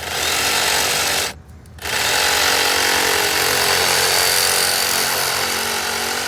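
Power saw cutting through 2-inch PVC irrigation pipe. It runs for just over a second, stops briefly, then starts again and runs steadily.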